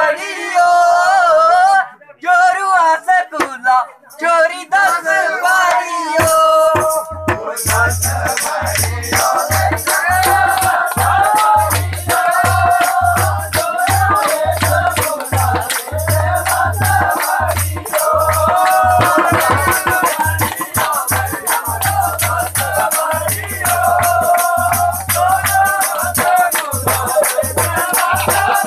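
A voice singing with no beat for about the first seven seconds, then loud dance music comes in: a fast rattling beat over deep bass notes, with singing on top.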